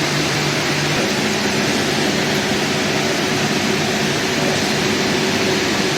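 Steady hum and rushing noise of running plant machinery, with a constant low drone and no change in level.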